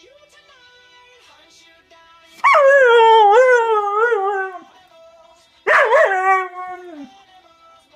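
Husky howling along to a pop song playing quietly in the background: two long, wavering howls, the first a little over two seconds long, the second shorter, each sliding down in pitch as it ends.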